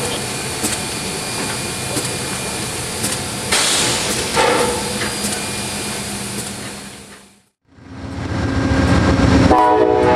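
Steam locomotive standing and hissing steam, with occasional knocks and clanks. It fades out about seven seconds in, and after a moment of silence a passenger train rumbles past, its horn sounding near the end.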